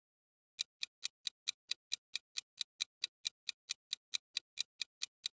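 Countdown-timer ticking sound effect, a fast even clock-like tick at about four to five ticks a second, starting about half a second in.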